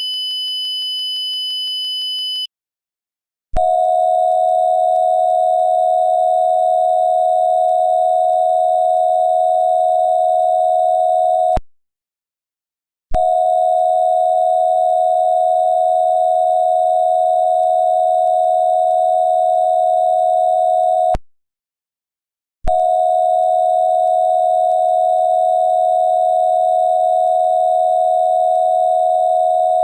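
Electronic alert tones: a steady high-pitched tone for about two and a half seconds, then, after a short pause, a steady low sine-wave tone sounding in three long stretches of about eight seconds each, with brief silences between them.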